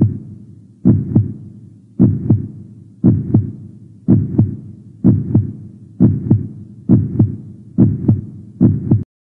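Heartbeat sound effect: a slow double thump, lub-dub, repeating about once a second and quickening slightly, cutting off suddenly near the end.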